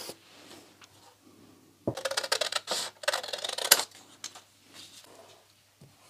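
Scissors cutting through a sheet of patterned paper: a run of quick, crisp snips for about two seconds, starting about two seconds in, with faint paper rustling and small taps around it.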